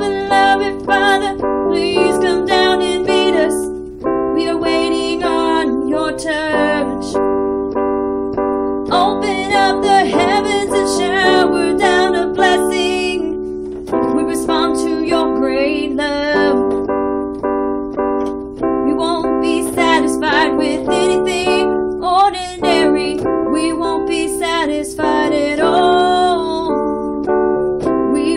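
A woman singing a worship song over sustained keyboard chords, her held notes wavering with vibrato.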